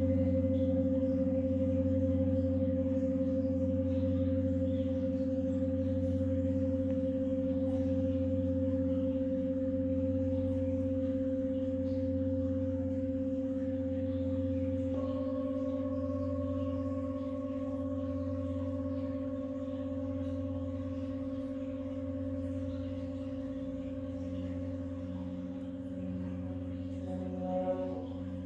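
Large Tibetan singing bowl, struck with a felt mallet, rings on with deep sustained tones that waver in a slow pulse. About halfway through, a smaller singing bowl held on the palm is struck with a wooden stick and adds a higher ringing tone over it. Near the end the stick is rubbed around that bowl's rim.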